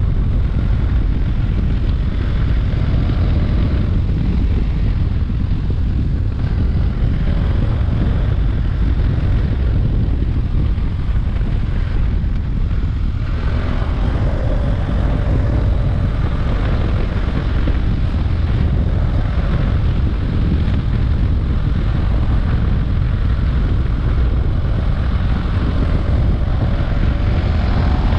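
Motorcycle riding at speed: heavy wind rush buffeting the helmet-mounted microphone over the BMW F800 GS's parallel-twin engine. The engine's pitch rises about halfway through and again near the end as it accelerates.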